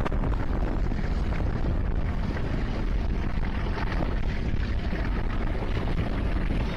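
Heavy wind buffeting the microphone over the steady rumble of a passenger train running along the line, recorded from outside a carriage window.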